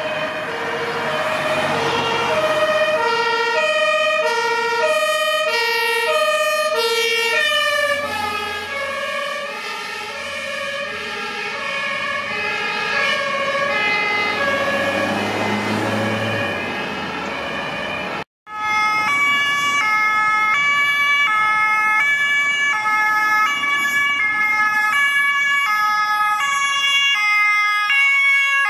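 Fire engine's German two-tone siren, two notes alternating, that drops in pitch about eight seconds in as the truck passes, with its diesel engine running underneath. After a sudden cut about two-thirds of the way through, a police van's two-tone siren sounds higher and steady.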